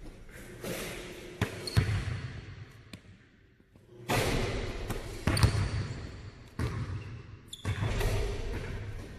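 Basketballs bouncing and thudding on a hardwood gym floor, each impact followed by an echo in the large hall, with a short lull about three seconds in.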